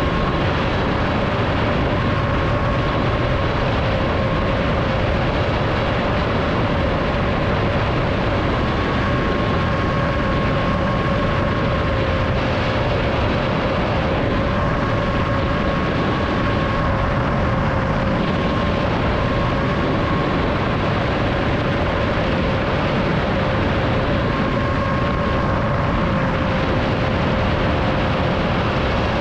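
Seven-inch FPV quadcopter's Racerstar 2508 brushless motors and three-blade props, heard through the onboard GoPro at a steady cruise. A constant whine drifts slightly up and down in pitch over a heavy rush of air noise.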